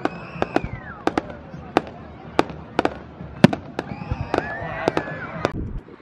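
Fireworks display: a string of a dozen or so sharp firework bangs at uneven intervals, the loudest about three and a half seconds in, with voices from the crowd between them.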